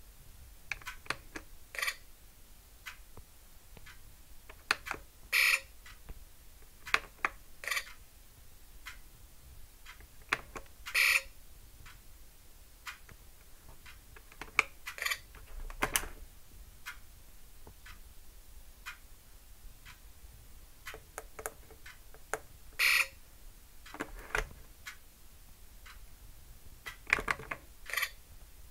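Electronic beeps and chirps from a prop Predator wrist-gauntlet self-destruct bomb, coming in irregular bursts as its keys are pressed, with small clicks in between.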